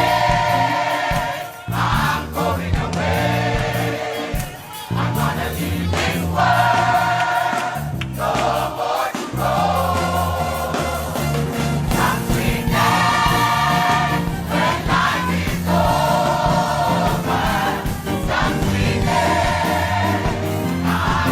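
Gospel music: a choir singing in phrases of a few seconds over sustained low accompaniment.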